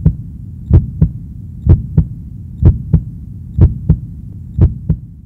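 A heartbeat: a double thump, lub-dub, about once a second over a steady low hum, six beats in all, the hum dying away near the end.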